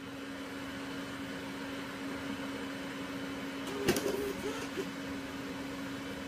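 A steady low hum over faint hiss, with a click and a few short faint sounds about four seconds in.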